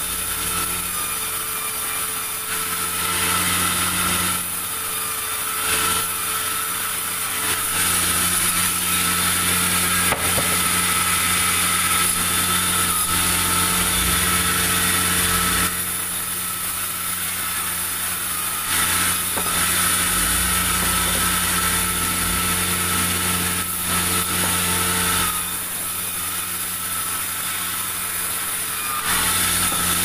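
Vertical log band saw running and cutting through a pulai log: a steady hum and high whine under the rasp of the blade in the wood. The cutting noise grows louder for long stretches and eases in between.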